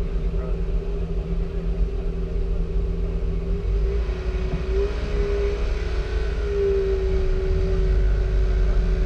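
A car engine running at a slow crawl: a steady low rumble with a held tone that wavers slightly in pitch.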